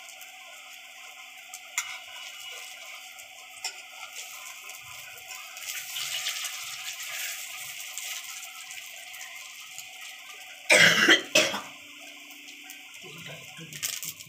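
Hot oil sizzling steadily around bread rolls frying in a kadai, with a couple of sharp spatula clicks on the pan early on. About eleven seconds in there is a loud double cough.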